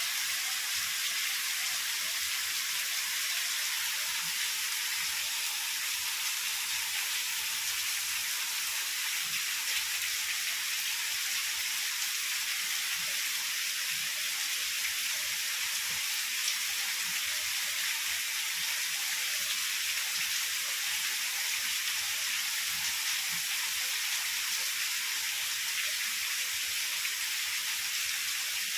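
Heavy rain falling steadily, an even hiss without breaks.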